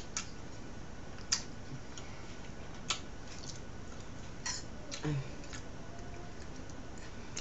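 A handful of separate sharp clicks and taps: a fork on a plate as grilled fish is picked apart, along with small mouth sounds of eating. A faint, fast and even ticking runs underneath.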